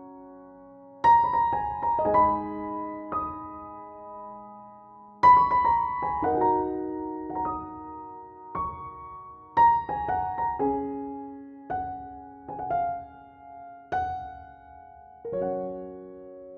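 Slow, gentle background piano music: soft chords and melody notes struck every few seconds and left to ring out and fade.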